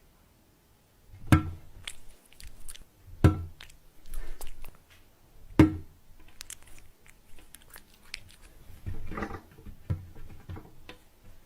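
Three loud, sharp knocks about two seconds apart, with softer clicks and crackling between them.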